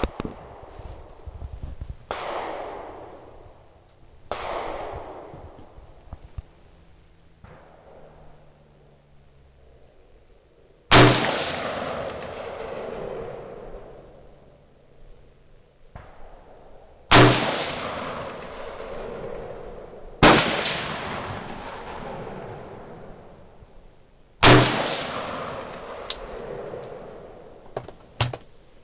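AR-15 rifle fired four times at uneven intervals, each shot a sharp crack followed by a long rolling echo that dies away over a few seconds. Three fainter shots, each with a similar echo, come earlier, and a steady high insect chirr runs underneath.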